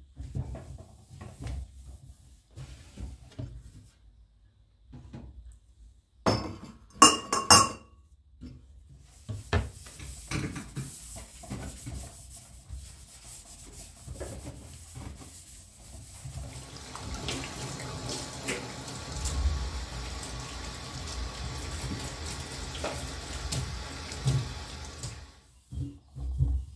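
Kitchen tap running into a sink, the flow growing fuller partway through and shut off abruptly near the end. A few sharp clinks, like dishes knocked together, come just before the water starts.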